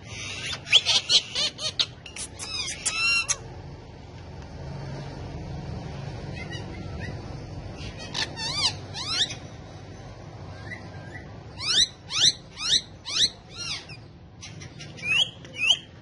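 Indian ringneck parakeets calling: quick runs of short, sharp squawks that sweep up and down in pitch. The calls come in several bursts with pauses between.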